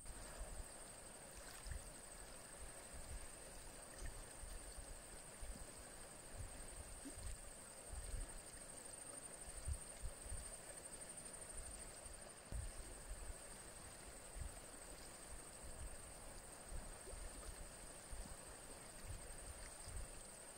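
Faint outdoor ambience of a shallow, clear river running over a stony bed, with irregular low wind gusts buffeting the microphone and a thin steady high hiss.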